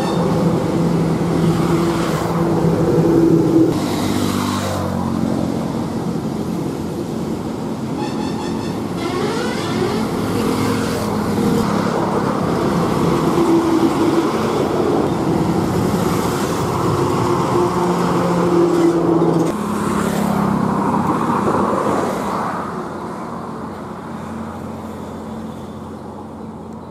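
Highway traffic dominated by heavy diesel lorries driving past: a steady engine drone and tyre noise, with the pitch gliding as vehicles pass. The sound is quieter for the last few seconds.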